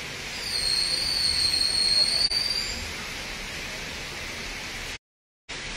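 Steady hiss of rain falling. Over it, a high whistling tone sounds for about two and a half seconds near the start. The sound cuts out briefly near the end.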